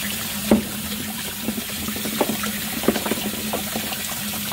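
Kitchen faucet running, its stream pouring over a ball of ice held in the hand and splashing into the sink, with a few brief knocks and splashes, the sharpest about half a second in.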